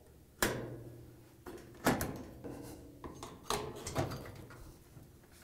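Putty knife pressing into the seam of a Maytag washer's top metal panel to release its retaining clips: a series of sharp clicks and knocks at irregular spacing, a few of them leaving a short ring in the sheet metal.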